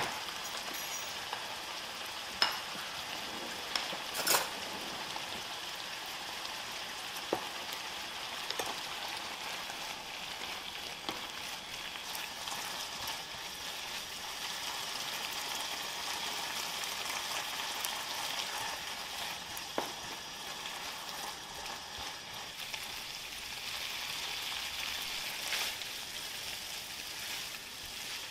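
Food sizzling steadily in a hot frying pan, with a few sharp clicks scattered through it.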